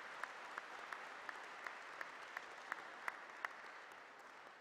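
Audience applauding, with one clapper standing out in sharp, even claps about three a second that stop about three and a half seconds in, and the rest of the applause then dying away.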